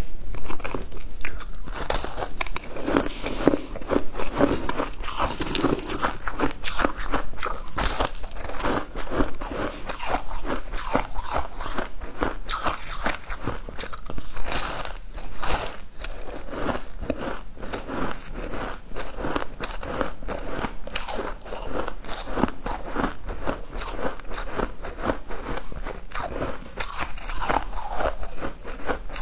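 Close-miked biting and chewing of a crystal-crusted pink and purple layered sponge cake, a dense run of crisp crunches and crackles.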